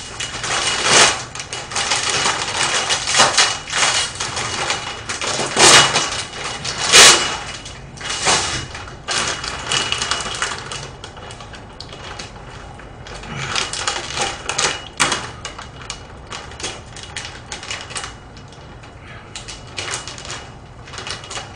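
Plastic packaging of frozen dumplings crinkling and crackling as it is handled, with sharp crackles busiest in the first half and sparser later.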